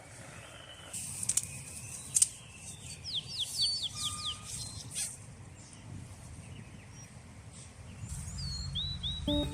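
Small birds chirping: quick runs of short, high, downward-sliding notes, one run a few seconds in and another near the end, over a low outdoor background rumble. A few sharp clicks or knocks come between one and two seconds in.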